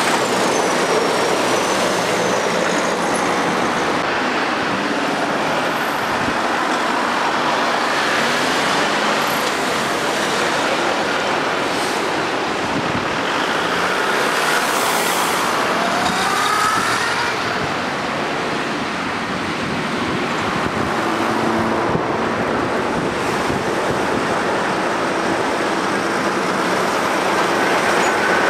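Steady road traffic: diesel lorries hauling tipper trailers and cars passing close by, engine and tyre noise blending together. It gets a little louder near the end as a lorry passes close.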